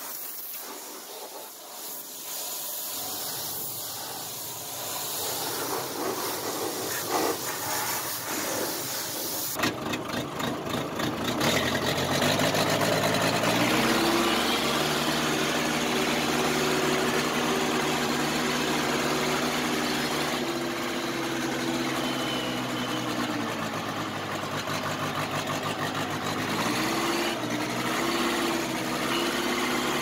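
Pressure washer spray hissing against the backhoe. About a third of the way in it gives way to the old backhoe's engine running as the machine is driven, its pitch stepping up twice as it revs.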